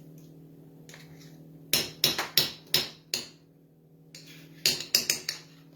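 A kitchen utensil rapped sharply against a mixing bowl, knocking sour cream off: two quick runs of knocks, the second about a second before the end, over a faint steady hum.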